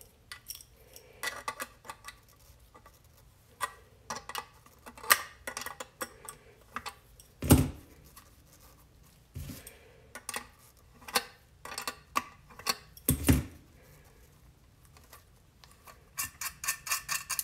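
Hands and a small hand tool working on a plastic antenna enclosure while loosening its SMA connector: scattered clicks, scrapes and small knocks, with two louder thumps, one about seven seconds in and another about thirteen seconds in, and a quick run of ticks near the end.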